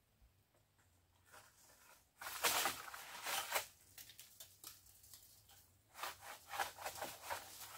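Star apple tree's leaves and branches rustling in two spells of rough, scratchy bursts as a long pole is jabbed and shaken in the canopy to knock fruit loose. The first second and more is almost silent.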